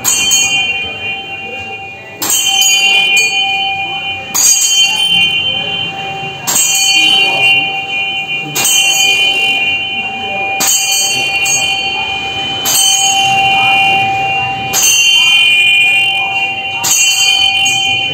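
Bell on a large Tibetan prayer wheel, struck once on every turn as the wheel is spun. It makes nine even strikes about two seconds apart, and each one keeps ringing until the next.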